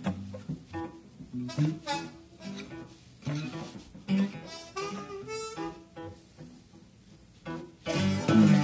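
Guitar being played: a run of single picked notes and short phrases, each ringing and fading, then a louder, fuller chord near the end that rings on.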